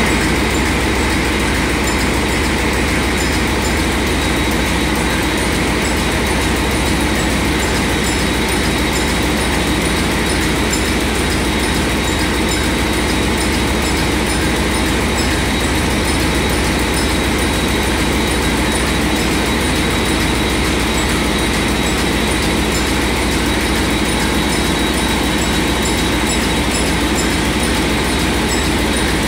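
Niigata diesel engine running steadily at constant speed, loud and unchanging throughout.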